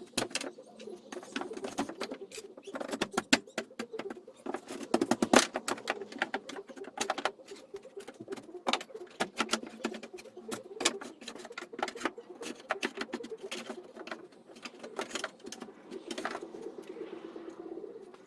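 Irregular sharp knocks and taps, several a second and uneven in loudness, over a continuous low warbling sound.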